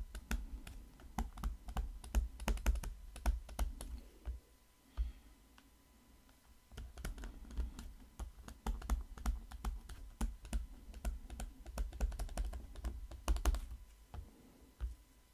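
Stylus tapping and clicking on a tablet screen during handwriting: an irregular patter of light taps, with a pause of about two seconds a little after four seconds in.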